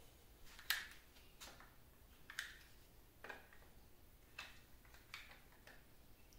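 About seven faint, sharp metallic clicks and clinks at uneven intervals, the loudest under a second in. These are hex keys being fitted into and worked against tight socket cap screws on a cast-iron lathe carriage.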